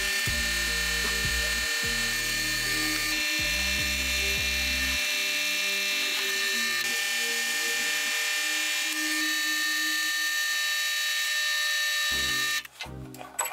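Background music over the steady whine of a drill press boring through a steel plate. Both break off abruptly about a second before the end.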